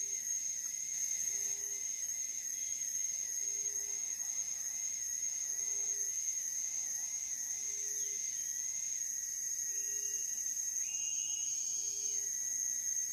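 Tropical forest insects, cicadas or crickets, shrilling steadily at a very high pitch, with a second, lower trill wavering underneath. A short low note repeats about every two seconds.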